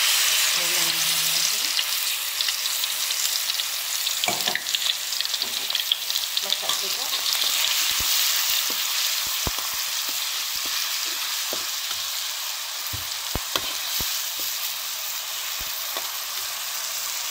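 Blended onion and garlic paste frying in hot cooking oil: a dense sizzle, loudest as it starts and easing slowly. A metal spatula scrapes and taps the pan now and then as the paste is stirred.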